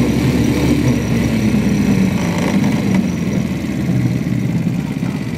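Small engine of a mini jeep running as it rolls slowly along, getting a little quieter near the end.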